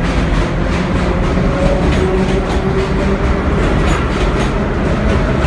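Vintage IRT Lo-V subway cars rolling past close by as the train pulls out of an elevated station: a loud, steady rumble with wheels clacking over the rail joints.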